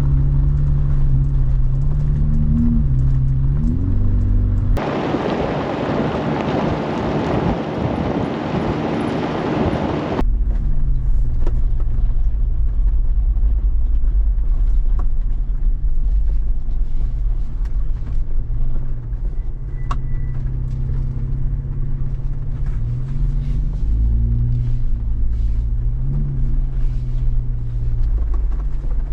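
Jeep Wrangler engine running at low trail speed, its pitch rising and falling as it drives. About five seconds in, a loud even hiss cuts in suddenly, masks the engine for about five seconds, then stops just as suddenly.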